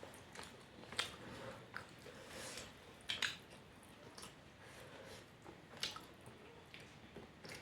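A person eating fish curry, with wet chewing and short smacking clicks from the mouth at irregular intervals.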